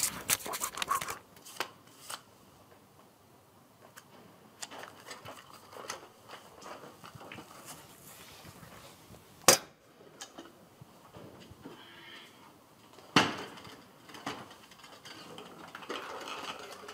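Scattered small clicks and rustles of things being handled, with a sharp metallic click about halfway through as a small black metal cash box is snapped shut, and another sharp knock a few seconds later.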